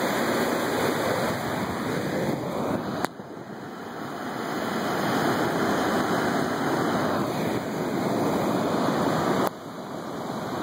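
Hurricane wind and rain rushing steadily over the microphone, broken off abruptly twice where the recording cuts.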